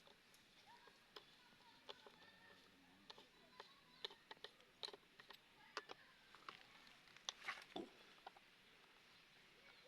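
Near silence broken by faint, scattered clicks and small taps, as of tools and parts being handled while the chainsaw's covers are taken off.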